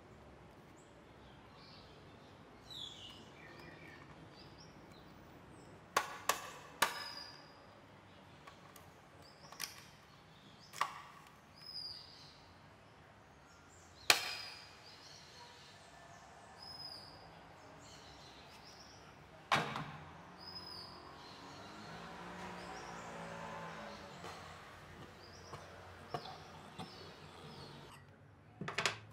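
Scattered sharp clicks and knocks of small hard objects being handled and set down by hand, with birds chirping in the background.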